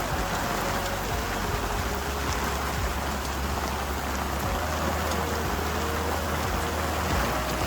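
Heavy rain pouring down on a moored sailboat, a steady, even hiss.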